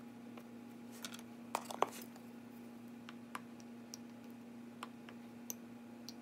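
Scattered light clicks and taps of fingers and a fork working an unbaked pie crust in its pan, the loudest few close together a little under two seconds in. A faint steady hum runs underneath.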